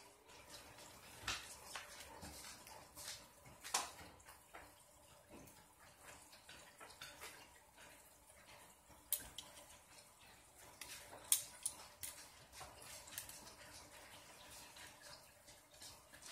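Faint, scattered clicks and light ticks of small RC car parts being handled and fitted together by hand, the sharpest around 4 and 11 seconds in.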